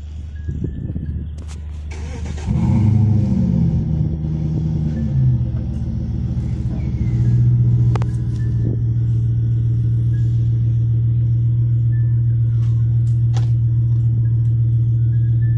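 Jeep WJ Grand Cherokee's 4.7-litre High Output V8 running low and even, then revving up about two and a half seconds in and, after a few rises and falls, holding at one steady higher speed under load as it pulls on a strap tied to a tree trunk. A few brief sharp clicks sound over it.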